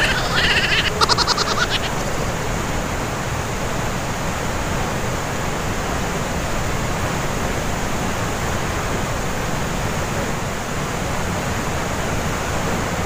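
Steady roar of a glacier-fed waterfall rushing through a narrow rock gorge, with a brief high-pitched call over the first two seconds.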